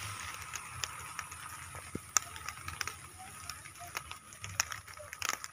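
Light rain falling, with scattered drops ticking irregularly over a soft hiss.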